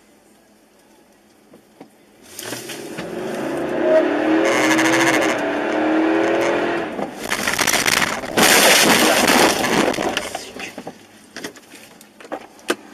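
Car sound picked up by a dashcam's microphone: a loud rush with a wavering whine through it, then two harsh noisy bursts, dying down to a few faint clicks near the end.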